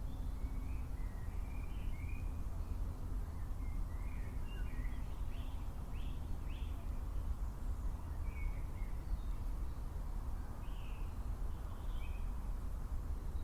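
Birds calling outdoors: short chirps and brief rising and falling calls come every second or so, over a steady low rumble.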